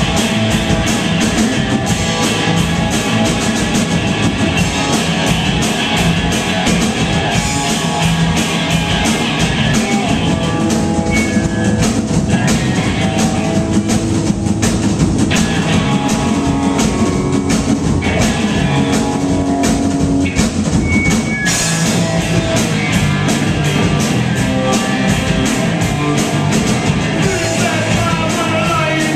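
Live rock band playing loud: drum kit, electric guitar and singing.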